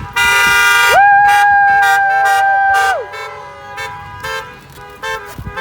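Several car horns honking: a loud blast, then one horn held steady for about two seconds, followed by shorter, quieter toots.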